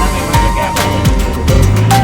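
Music with a melody, bass notes and drum hits.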